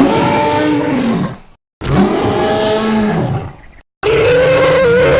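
Carcharodontosaurus roar sound effects: three separate roars, edited together with short silent gaps between them. The last is a longer roar that holds a steadier pitch.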